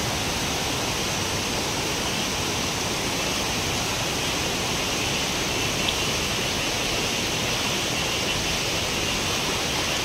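Shallow stream rushing steadily over rocks and riffles.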